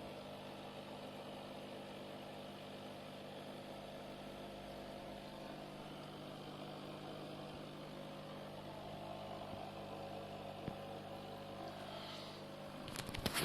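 Steady low hum with a faint even hiss. A few sharp knocks near the end.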